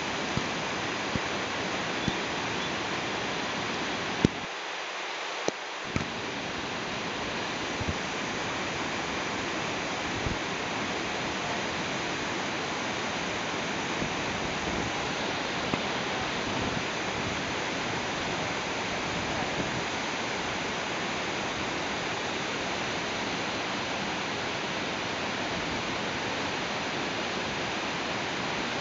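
Whitewater rapids of a mountain river pouring over boulders: a steady, even rush of water. A few sharp knocks stand out over it, the loudest about four seconds in and two more a second or two later.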